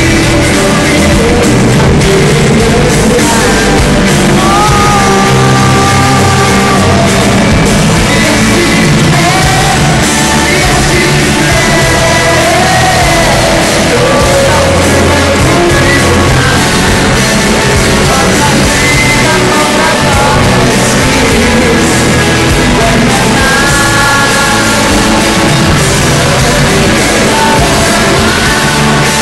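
A live band with a male lead singer performs a song through the PA, heard from among the arena audience.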